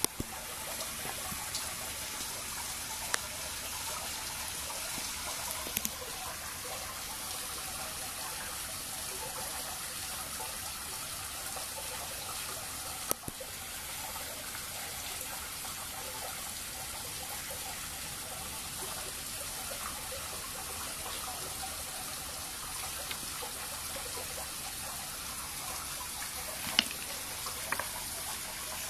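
Steady trickle of running water into a pond, with several short sharp pops and splashes scattered through, the loudest near the end: catfish hybrids gulping floating pellets at the surface.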